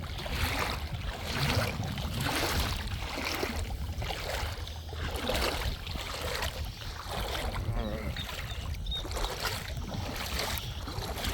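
Footsteps crunching on a pebbly beach, about one step a second, with a low wind rumble on the microphone.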